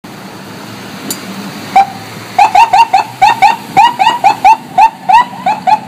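Fire department command vehicle's electronic siren sounding short, loud chirps in quick succession, about four or five a second, starting about two seconds in over low traffic rumble.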